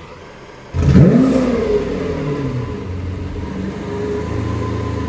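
Lamborghini Aventador Superveloce's 6.5-litre naturally aspirated V12 starting up: a brief quiet starter whir, then the engine catches about a second in with a loud rev flare that rises and falls before settling into a steady idle.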